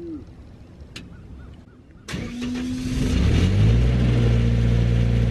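The engine-driven welding machine on a welding rig truck cranks and starts about two seconds in. Its engine speed rises for about a second, then it settles into a steady run.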